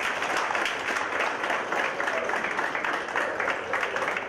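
A small audience applauding: many hands clapping together in a dense, steady patter.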